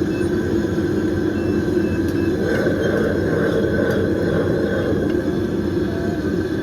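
Steady low rumble of ambient noise at a busy street market, with no distinct events standing out.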